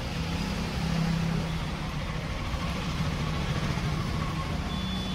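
Steady low mechanical hum, like a motor running, over a background hiss.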